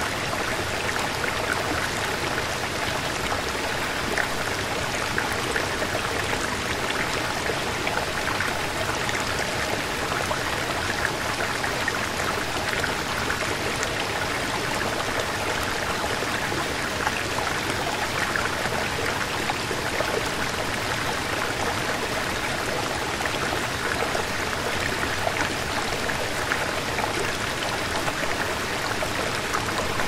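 Waterfall: a steady, even rush of falling and splashing water.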